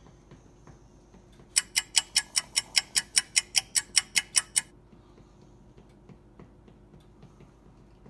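Ticking clock sound effect: a fast run of sharp ticks, about five a second, for about three seconds, then dying away to faint ticks.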